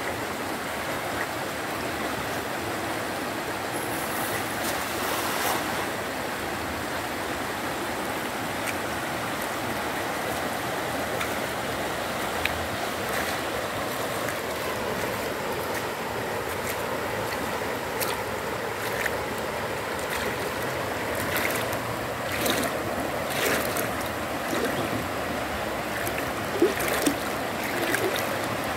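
Steady rush of water flowing in a small, shallow river. From about two-thirds of the way in, short splashes and sloshes of someone wading through the water break in, most often near the end.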